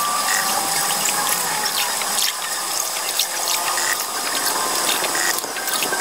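A canoe paddle dipping and water swishing around the boat, over a steady hiss, with scattered short high chirps.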